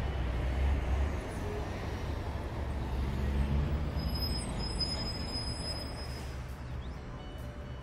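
Wind buffeting the microphone outdoors: an uneven low rumble that rises and falls in gusts.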